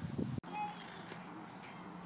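Hound puppy howling, cut off abruptly about half a second in; then a quiet stretch with a few faint high chirps.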